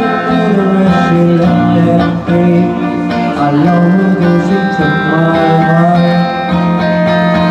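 Live band playing a 1960s pop song with guitar to the fore, a stretch of the tune with held notes and no words sung.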